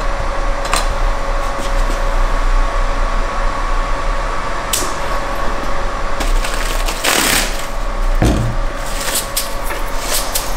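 A self-inking date stamp clicking as it is pressed onto a paper certificate, with a short rustle of paper about seven seconds in, over a steady hiss and faint hum.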